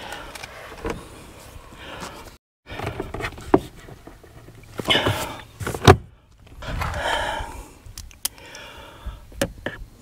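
Car power window motor running in short stretches as the driver's door glass is raised, broken off abruptly a couple of times. Scattered clicks and knocks of a screwdriver and screws against the plastic door panel.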